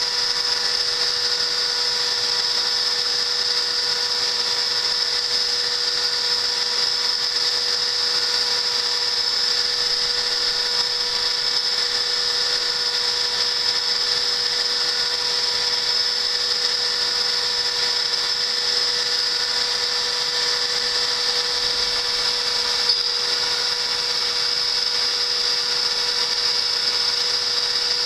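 CNC router spindle running steadily with a high whine, machining counterbores for machine screws in an 8 mm metal plate.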